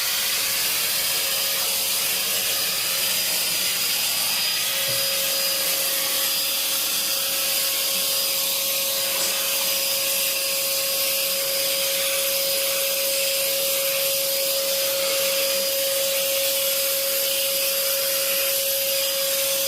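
Vacuum cleaner running steadily: a loud, even rushing hiss with a steady whine that grows stronger about five seconds in.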